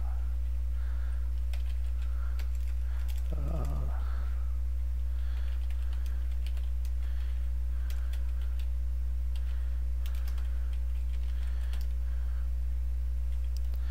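Computer keyboard typing: irregular key clicks as a terminal command is entered, over a steady low electrical hum.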